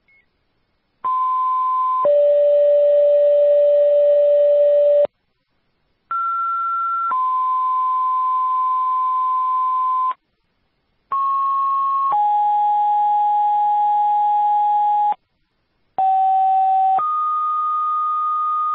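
Four sets of two-tone sequential fire paging tones on a dispatch radio channel, each a steady one-second tone followed by a steady three-second tone at a different pitch, with a short gap between sets. These are the alert tones that set off the pagers of the fire and rescue units being dispatched.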